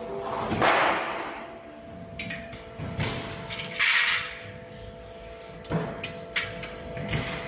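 Metal parts of a solar water heater stand being handled and fitted together: irregular knocks and clanks, a few seconds apart.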